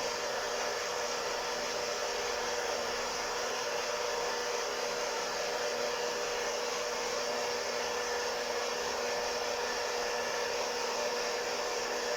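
Hot-air coffee roaster's fan and heater running steadily: an even whoosh with a constant hum. The beans are still in the drying stage at about 134–146 °C, well before first crack, so no cracking is heard.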